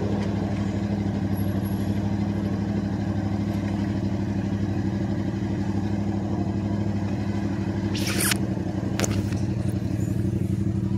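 An engine idling steadily: a low, even hum with a fast regular pulse. A short rush of noise comes about eight seconds in, and a click about a second later.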